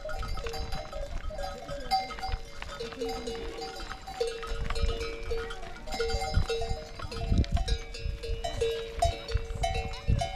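Bells on a moving flock of sheep and goats clanking over and over, several bells of different pitches ringing at once. A low rumbling noise runs underneath and swells about seven seconds in and again near the end.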